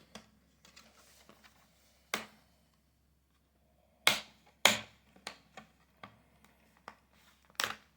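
Sharp plastic clicks and snaps, one about two seconds in and then several more in quicker succession, as the clips of a Dell Inspiron 5570's plastic screen bezel are prised free of the laptop lid.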